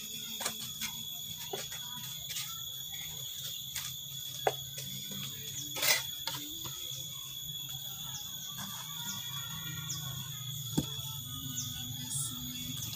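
Rough stones knocking against each other as they are set by hand into a rubble-stone foundation wall: scattered sharp knocks, the loudest about six seconds in. A steady high-pitched drone runs underneath.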